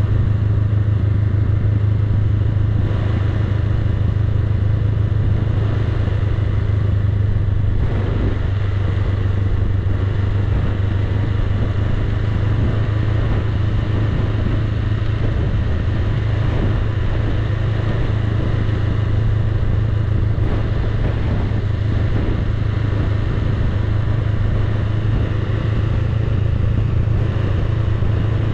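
Honda Rebel 500's parallel-twin engine running steadily as the motorcycle is ridden slowly downhill, a constant low hum with no revving.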